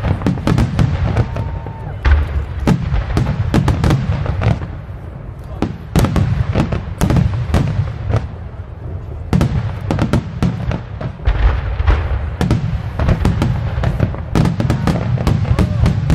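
Aerial firework shells bursting in a dense, continuous barrage: deep booms overlapped by many sharp cracks and reports, with no pause between them.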